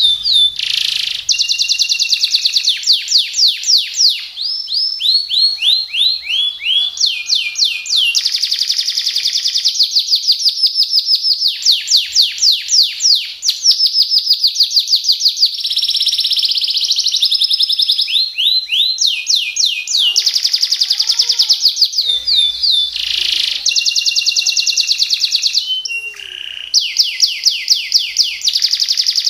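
Domestic canary singing a continuous, loud song of rolling trills: runs of fast repeated down-sweeping notes, changing from one phrase to the next every second or two.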